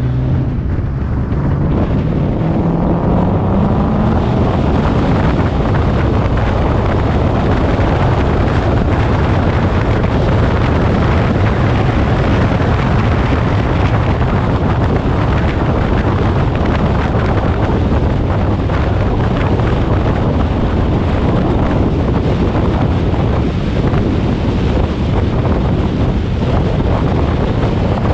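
Twin-turbocharged Nissan 350Z's V6 running hard, its pitch rising over the first few seconds as it accelerates, then carrying on at speed under heavy wind noise on the microphone.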